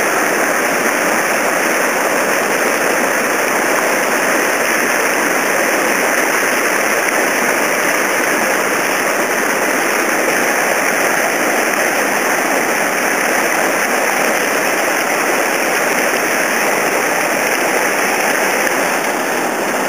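Heavy whitewater of a river rapid rushing steadily and evenly, with no break.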